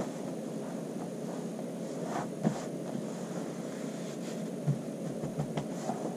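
Hands smoothing a knit top flat on pattern paper: soft brushing and a few light knocks, the loudest about two and a half seconds in, over a steady background hum.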